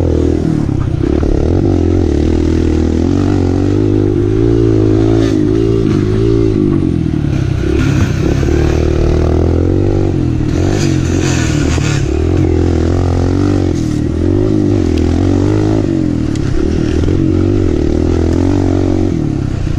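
Kawasaki KLX 140L's single-cylinder four-stroke engine, heard on board, revving hard, its pitch rising and falling again and again with the throttle. The bike clatters over rough dirt trail.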